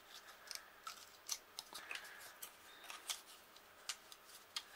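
Scattered faint clicks and light scrapes of a plastic phone-battery case being handled and pressed shut around a new lithium cell pack.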